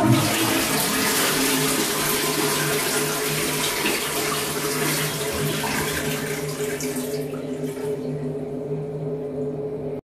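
Toilet flushing from a Dudley Vantage concealed cistern, now working after repair. Water rushes into the bowl and swirls away; it starts suddenly and eases off after about seven seconds, with a steady low hum underneath.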